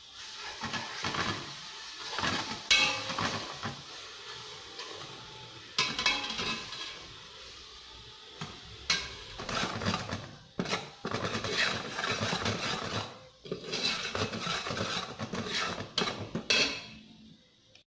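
A metal ladle scraping and clinking against a stainless steel pot as pork is stirred in it, in several bouts with short pauses.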